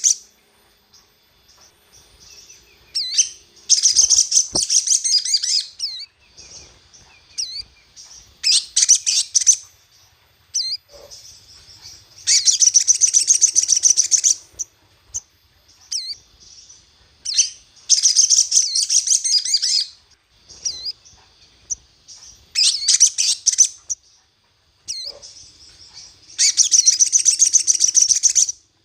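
Crimson sunbird (sogon) singing: repeated bursts of fast, high-pitched twittering, each about two seconds long, with short single chirps in between.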